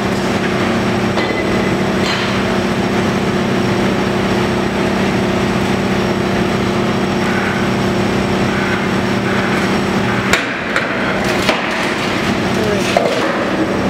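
Demolition excavator's engine and hydraulics running steadily as its grab works at a building's ceiling structure. About ten seconds in, the engine note dips and a few crashes and clatters of falling debris follow.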